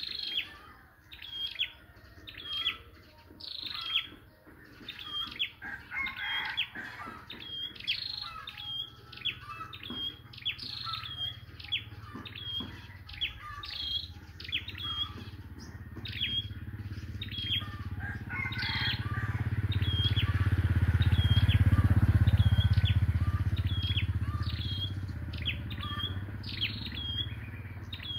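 Small songbird ('chim sâu', a flowerpecker) used as a trap-cage decoy, calling with short, sharp, high notes that drop quickly in pitch, about one and a half a second. A low rumble swells and fades midway.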